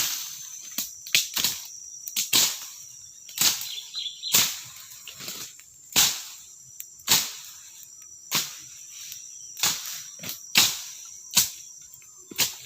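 Repeated sharp strikes of a chopping tool on wood, at an uneven pace of about one a second, over a steady high-pitched insect drone.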